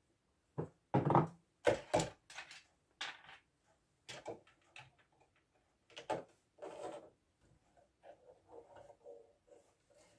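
Irregular clicks, knocks and rustles of hands changing the thread on an embroidery machine: a plastic thread cone set on the spool pin and the thread drawn through the guides. The knocks are loudest about one to two seconds in, and there is softer rustling later.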